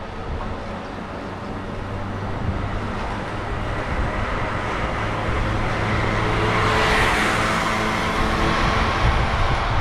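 City street traffic, with a motor vehicle passing close by and loudest about seven seconds in, over a low rumble of wind on the microphone.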